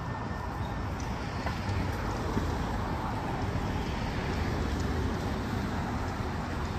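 Steady street traffic noise: cars running along the road beside the pavement, swelling slightly in the middle.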